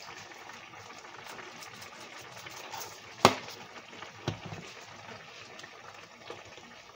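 Beef in a sweet soy sauce simmering in a skillet, a steady bubbling hiss. There is a sharp knock about three seconds in and a softer one a second later, and a wooden spatula stirs the pan.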